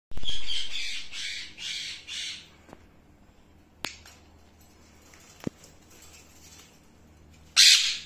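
Indian ringneck parakeets giving a run of loud, harsh screeching calls for the first two and a half seconds, then one short, loud squawk near the end. Two sharp clicks fall in the quiet between.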